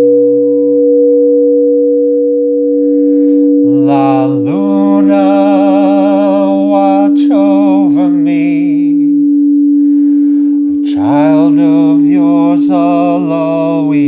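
A singing bowl rings with a steady sustained hum while a voice sings long wordless notes over it, in two phrases: one starting about four seconds in, the other about eleven seconds in.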